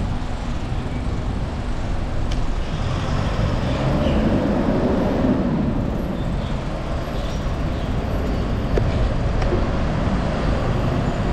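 Road traffic noise mixed with wind rumbling on the microphone of a moving bicycle. A vehicle swells past about four to five seconds in.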